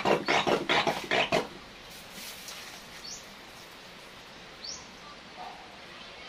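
Handheld trigger sprayer squirting water in quick strokes, about three a second, for the first second and a half. After that, two short rising bird chirps over quiet background.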